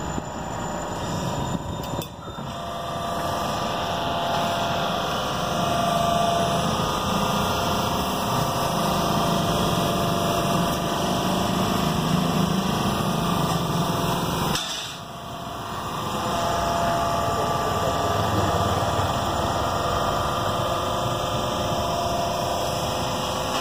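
Hydraulic power pack of an alligator scrap shear, an electric motor driving the hydraulic pump, running steadily with a faint whine. Its level drops briefly about fifteen seconds in.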